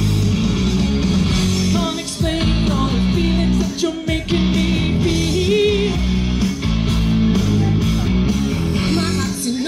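Rock song played loud over a stage PA: electric guitar, bass and drums with a singing voice.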